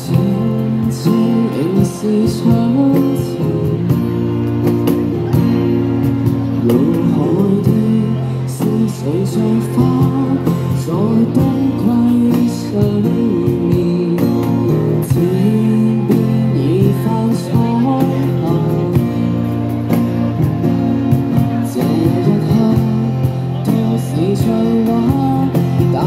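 A man singing a song into a microphone, amplified, accompanied by a strummed acoustic guitar.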